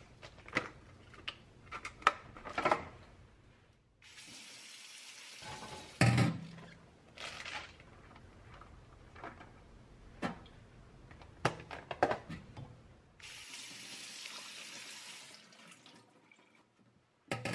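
A kitchen tap runs twice, for about two seconds each time, about four seconds in and again near the end. Sharp knocks and clatter fall between, and the loudest is a thud as the first run stops.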